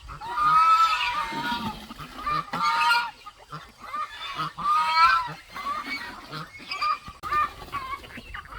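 Geese honking: a series of calls, the loudest about half a second in, again near two and a half seconds and near five seconds, with shorter calls between.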